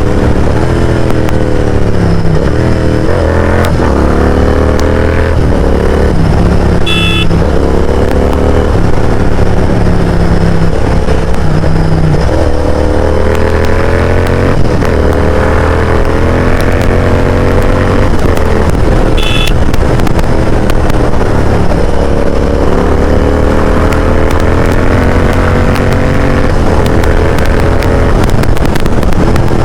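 Royal Enfield Continental GT 650's parallel-twin engine through a loud Mototorque aftermarket exhaust while riding: the engine note climbs and drops again and again as the rider accelerates through the gears and rolls off.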